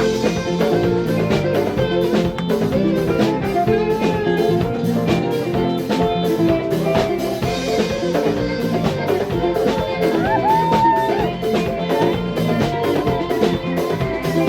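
Band music with a steady drum-kit beat and guitar, with a short sliding note about ten seconds in.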